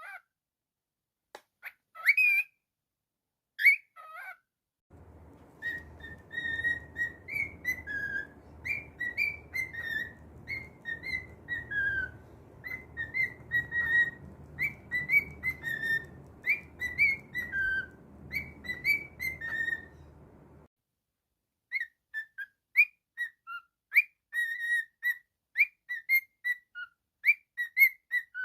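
Cockatiel whistling a tune as a run of short, stepping notes, after a few brief chirps. A low hum lies under the middle part of the tune and stops about two-thirds of the way through.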